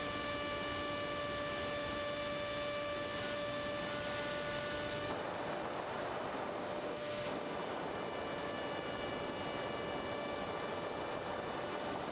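Multiplex EZ Star's electric motor and propeller running near full throttle in flight: a steady whine over an even hiss of rushing air. The whine drops away about five seconds in, leaving mostly hiss, and returns more faintly later.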